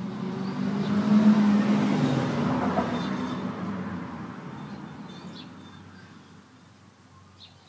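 A motor vehicle driving past: loudest about a second in, then fading away slowly over several seconds.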